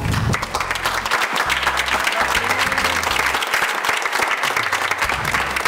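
Many people applauding together, with music playing underneath.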